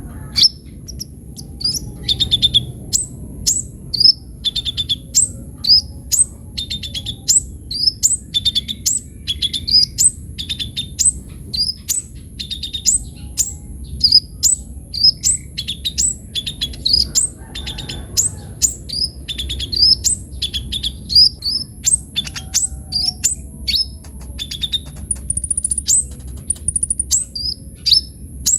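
Kolibri ninja sunbird singing energetically in full song: a continuous, rapid string of high, thin chirps and quick down-slurred notes, two or three a second.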